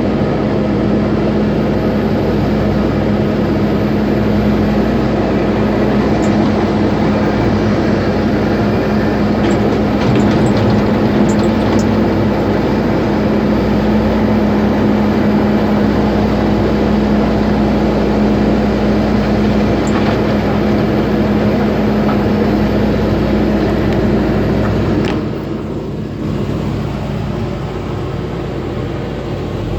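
Heavy machinery running steadily as it crushes concrete, with a constant engine drone and a few sharp knocks of material about ten to twelve seconds in. The sound drops noticeably about 25 seconds in, as the machine eases off.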